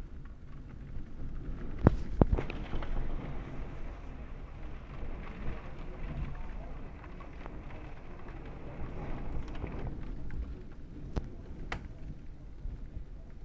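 Thunder in a severe storm: a sharp double crack about two seconds in, then a rumble that rolls on and cuts off near ten seconds, with a few sharp ticks afterwards.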